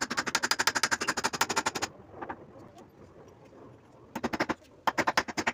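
Rapid clicking in bursts, about a dozen sharp clicks a second, from a hand tool worked against the underside of a homemade table saw's wooden top. There is a long burst, a pause of about two seconds, then two shorter bursts near the end.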